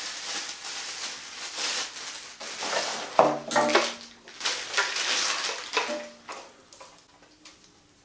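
Plastic packaging bags crinkling and rustling as they are handled, with light clatter of small parts, in several spells; it dies down near the end.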